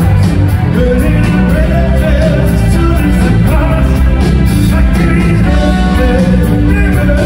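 Live rock band playing loudly: a man singing lead vocals over electric guitar, Hammond organ and drums, with cymbals keeping a steady beat.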